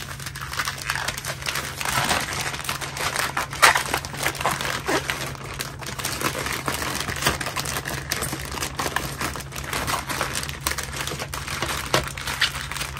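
Plastic courier mailer bag crinkling and rustling in a dense, irregular crackle as it is pulled open by hand and the contents are drawn out.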